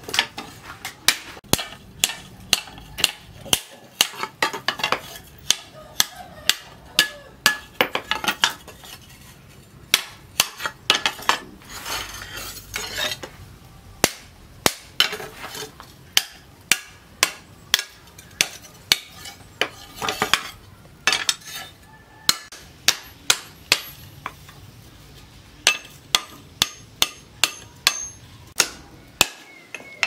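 Hand hammer striking a red-hot steel axe head, forged from a tractor plough disc, on a small stake anvil: a steady run of sharp metal blows at about two a second, with a brief break near the middle.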